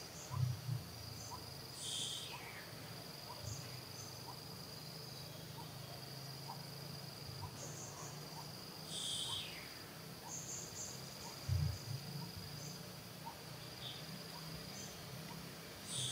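Insects droning steadily at a high, even pitch. A short call that slides downward in pitch repeats every seven seconds or so.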